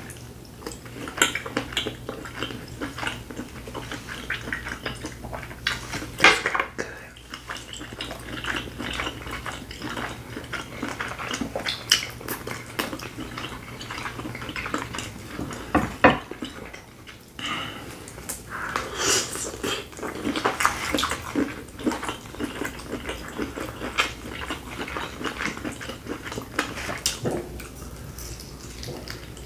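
Close-miked eating of sauce-coated shrimp and scallops: wet chewing and smacking, heard as a constant irregular patter of sharp clicks and crackles.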